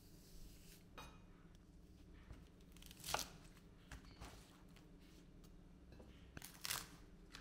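Kitchen knife cutting and splitting spring onion stalks on a wooden chopping board, faint: two short crisp tearing sounds, about three seconds in and near the end, with a few light taps and clicks between.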